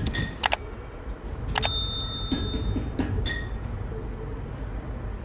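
Several sharp clicks, then a bell-like ding that rings on for about a second, about a second and a half in, with two smaller clicks and rings near the three-second mark. These are the sound effects of an on-screen subscribe-button and notification-bell animation, over a steady low background rumble.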